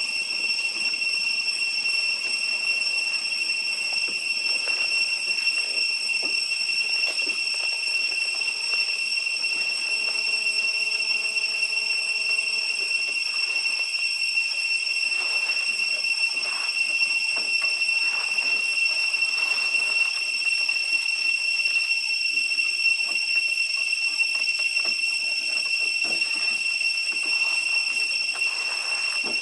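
Cicadas holding one steady, high-pitched drone throughout, with a brief pitched call about ten seconds in.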